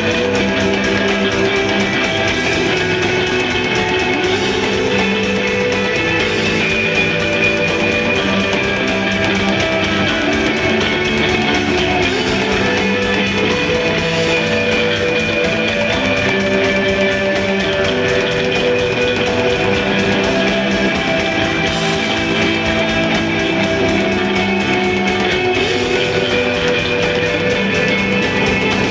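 Live instrumental desert rock played loud by a guitar-bass-drums band: electric guitar holding long sustained notes that shift every second or two over the rest of the band.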